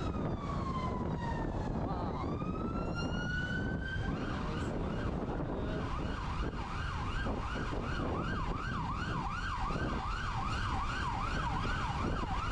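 Emergency vehicle siren: a slow wail falling then rising, switching about four seconds in to a fast yelp of about two cycles a second. Wind buffets the microphone throughout.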